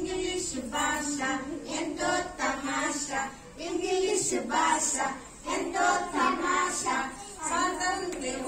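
A small group of young girls singing together in English, in short phrases with brief breaks between them.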